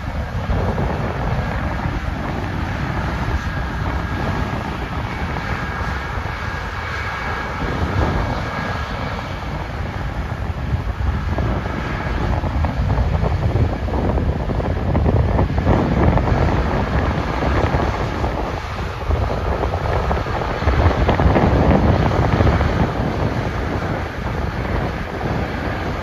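John Deere X9 combine harvesting barley and Case IH Quadtrac 620 tractors pulling grain carts alongside, a steady machinery drone mixed with wind buffeting the microphone. It grows louder in the second half as a tractor passes close.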